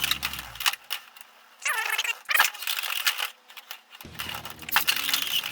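Beyblade X tops spinning and clashing in a plastic stadium: rapid clicking, rattling hits and scraping, with a brief whirring glide about two seconds in.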